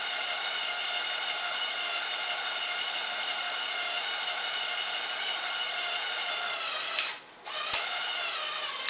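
Small electric motor of a Lego Technic model crane whining steadily through its gearing as it folds an outrigger leg, the pitch sagging slightly near the end. About seven seconds in it cuts out, a sharp click follows, and the whine starts again.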